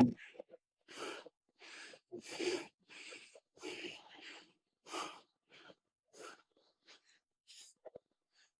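A man breathing hard through a set of lifts: sharp, rasping breaths about one a second, getting fainter toward the end. A sharp knock at the very start is the loudest sound.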